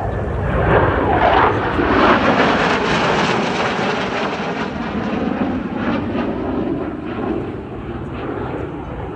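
Blue Angels aircraft flying past: loud engine noise that swells about a second or two in, with sweeping, shifting tones, then slowly fades away.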